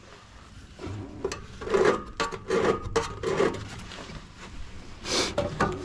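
Rough scraping and rasping against the stove's internal parts: a handful of separate strokes, roughly a second apart.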